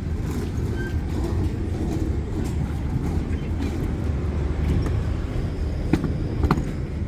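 City street traffic: a steady low rumble of passing vehicles, with two short sharp clicks about six seconds in.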